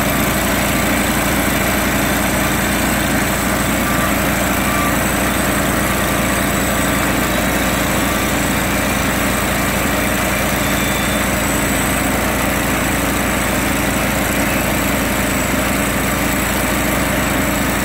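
The engine of a Norwood HD36 portable bandsaw mill running steadily under load as its band blade saws lengthwise through a large log.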